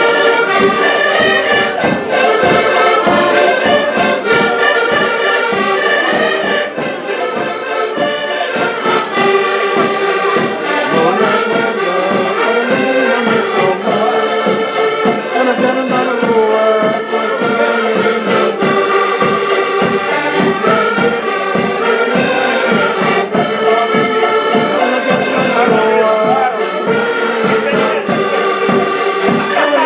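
A Portuguese folk ensemble of several diatonic button accordions playing a lively tune together, with a steady bass drum beat underneath.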